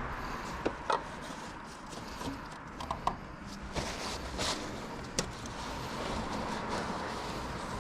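Scattered light clicks and knocks of tools and parts being handled during an oil change, over a steady background hum.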